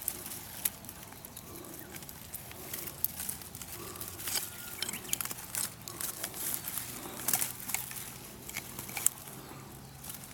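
Dry leaves and twigs crackling and rustling, with irregular sharp snaps scattered throughout.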